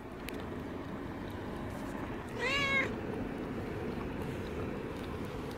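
A calico cat meowing once, a short call about halfway through that rises slightly and falls away.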